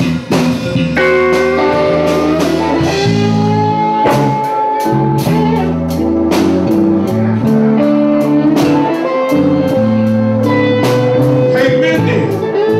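Live blues band playing a slow blues instrumental passage: a lead guitar holds long notes, some bent in pitch, over bass and a steady drum beat.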